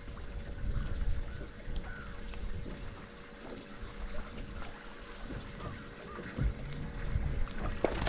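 Water lapping and splashing against the hull of an aluminium bass boat, with wind buffeting the microphone. A faint steady hum sits underneath.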